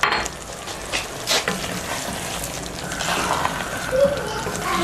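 Stew pot sizzling as it is stirred, with a few sharp knocks of the utensil against the pot in the first second and a half.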